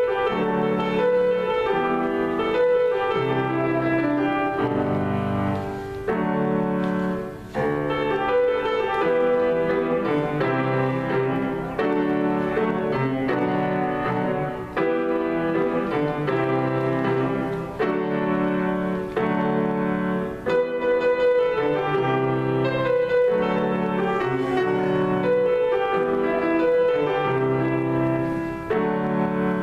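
Grand piano played solo: a continuous run of chords over repeating bass notes, without a break.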